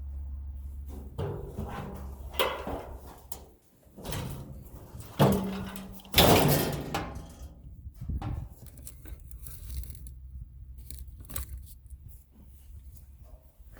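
Metal clanks and rattles of furnace parts and tools being handled while a small furnace is stripped for scrap. There are irregular knocks throughout, and the loudest bangs, with rattling after them, come about five and six seconds in.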